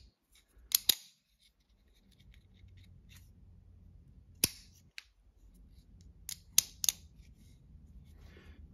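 Demko AD20.5 carbon fiber folding knife being worked open and shut: crisp metallic clicks as the blade snaps into place. There is a pair about a second in, a single click in the middle and another pair near the end.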